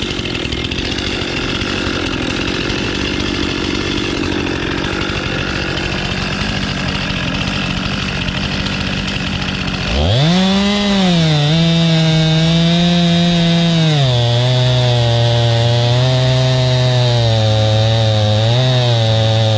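Stihl chainsaw fitted with a small chainsaw mill, running under load as it rips lengthwise through a squared log. About halfway through the sound changes abruptly to a louder, clearer engine note, which drops a step in pitch a few seconds later.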